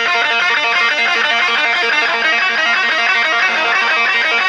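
Electric guitar playing a fast, steady run of quick plucked notes.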